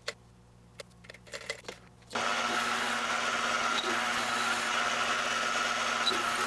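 Chinese mini metal lathe switched on about two seconds in, running with a steady motor whine and gear noise. A few light clicks before it starts.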